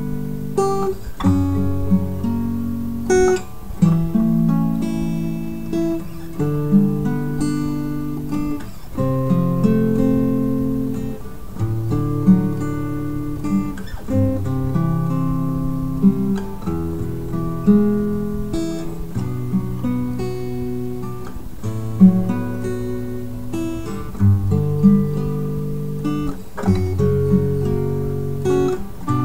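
Acoustic guitar music: chords strummed and single notes plucked, each left to ring.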